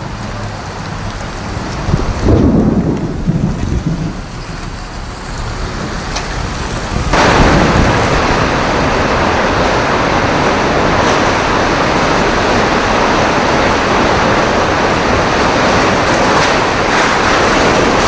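Storm roar of tornado wind and heavy rain. A loud low rumble comes about two seconds in, and from about seven seconds a loud, steady hiss of wind-driven rain takes over.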